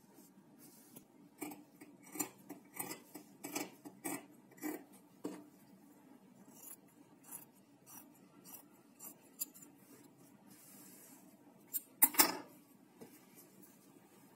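Small scissors snipping through the knit fabric of a pair of sweatpants: a quick run of short cuts, then a few sparser snips. There is a louder clack about twelve seconds in.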